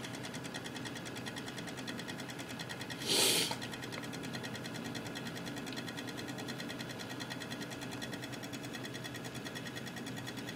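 Cooler Master Real Power Pro 550 W power supply making a fast, even ticking noise, with one brief louder rush of noise about three seconds in.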